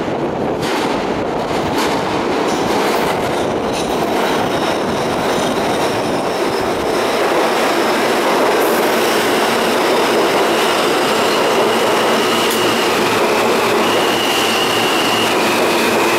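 R160 subway train pulling into the station out of the tunnel: the wheels rumble on the rails, with clicks over the rail joints in the first few seconds. It grows a little louder as it comes alongside, and from about halfway a high whine joins in, shifting pitch in steps.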